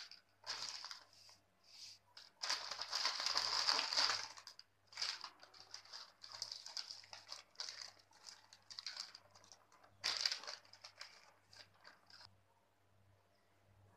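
Crinkling of a foil-lined potato chip packet being handled and shaken as its chips are emptied onto a plate, in irregular bursts. The longest burst comes about two to four seconds in and another about ten seconds in, and the crinkling dies down near the end.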